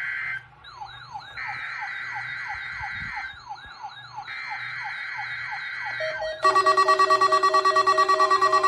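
NOAA Weather Radio Required Weekly Test coming through a group of weather receivers. Screeching SAME header data bursts of about two seconds each are heard, the end of one and then two more. Under them the receivers' alert tones sound: a falling siren-like chirp repeating about three times a second and a warbling high beep. About six seconds in, a much louder alarm of several tones, pulsing about four times a second, takes over.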